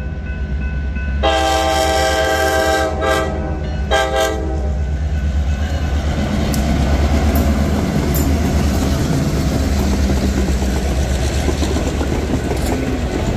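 Reading & Northern EMD F-unit diesel locomotive 270 sounding its horn at a grade crossing: a long blast, then a shorter one, ending about five seconds in. After that the locomotive's diesel engine runs loud and steady and the passenger cars' wheels clatter over the rail joints as the train passes.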